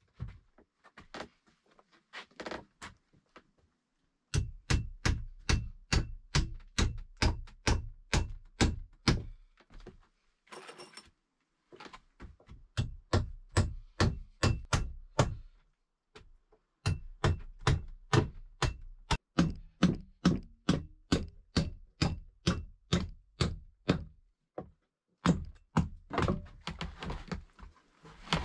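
Repeated blows of a tool on wood, about two a second, in three runs with short pauses between.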